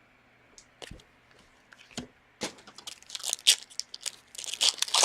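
Foil trading-card pack wrapper being torn open and crinkled by hand: a few light clicks, then about two and a half seconds of dense crackling.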